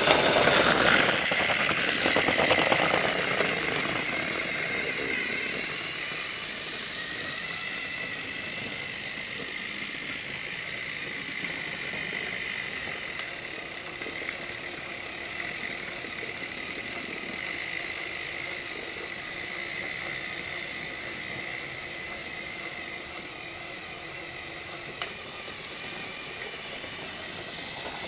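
Battery-powered Trackmaster motorised toy train running along plastic track: a steady motor whir with a thin high whine, louder for the first few seconds, then settling to an even level. A single short click near the end.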